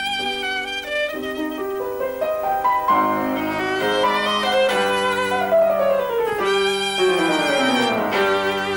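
Classical music: a violin playing sustained notes with vibrato over piano accompaniment, sweeping down through a long falling run of notes in the second half.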